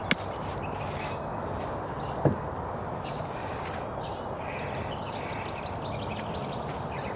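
Steady outdoor background noise, with one sharp knock a little over two seconds in.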